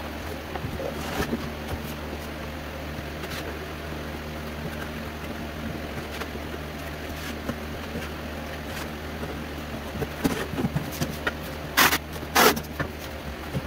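Cardboard box being folded and handled, with light knocks and rustles over a steady low hum. Near the end, packing tape screeches twice as it is pulled off a handheld tape gun across the box.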